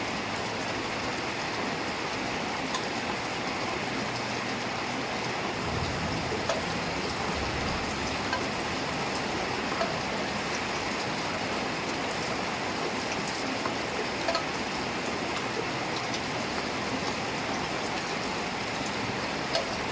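Heavy rain falling steadily, with scattered sharper drop splashes.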